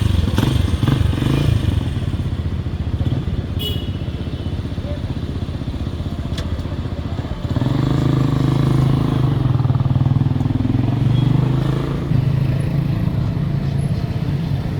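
An engine running with a steady low hum, growing louder about halfway in and then holding steady.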